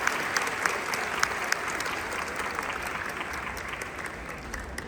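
Audience applause, dying away toward the end.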